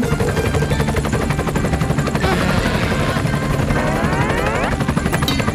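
Helicopter sound effect: steady rotor chopping over a low engine hum. A rising whistling sweep comes in about four seconds in.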